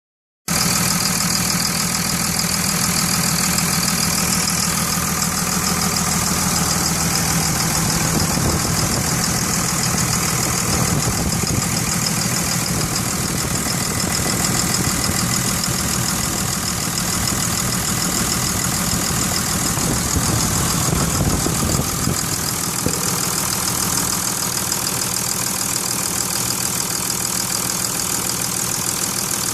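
2002 Cummins diesel engine idling steadily, with a knock in the engine.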